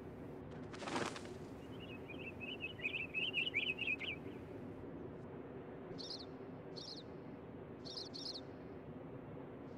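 Finch sounds: a brief flutter about a second in, then a soft twittering warble, then four short high chirps near the end, over a faint steady hum.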